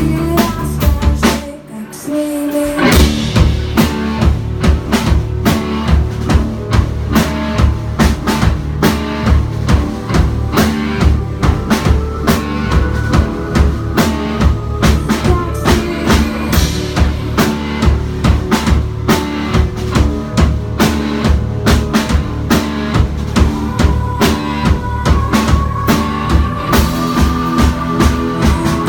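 Live band jamming: a drum kit keeps a steady beat under bass and guitar. The band drops out for a moment about a second in, then the beat comes back in full.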